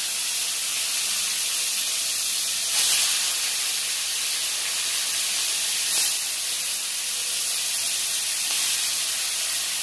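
Katla fish steaks sizzling as they shallow-fry in hot oil in a kadai: a steady high hiss. It flares louder briefly about three and six seconds in as further steaks go into the oil.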